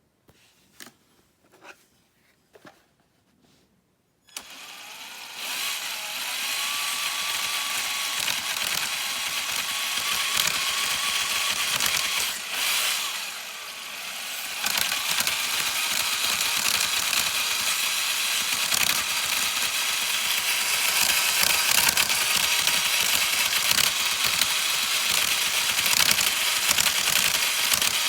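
A few faint clicks, then about four seconds in a Traxxas TRX-4 radio-controlled crawler's motor and drivetrain start running with a steady, high whirring noise, a weird noise for this truck. The noise dips briefly around the middle, then carries on.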